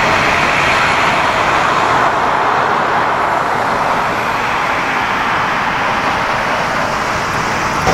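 Steady, loud rush of jet engine noise from a four-engine Boeing 747-8 freighter (GEnx turbofans) as it lands and rolls out on the runway.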